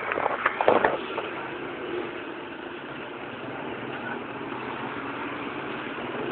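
Road traffic noise: vehicle engines running steadily, with a few sharp clicks in the first second.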